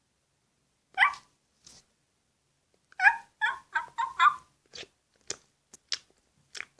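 A small dog yapping: one short yip about a second in, then a quick run of five yaps. A few faint clicks follow.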